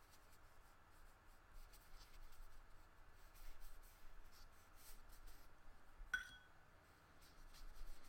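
Faint, soft strokes of a watercolour paintbrush on paper while a background is washed in blue. About six seconds in there is one brief light click with a short ring.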